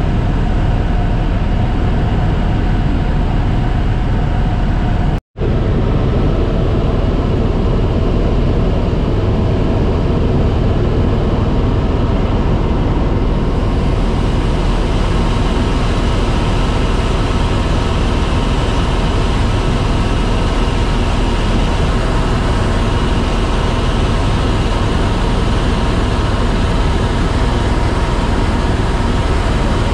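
Loud, steady engine and rotor noise inside a tour helicopter's cabin, unbroken except for a momentary dropout about five seconds in.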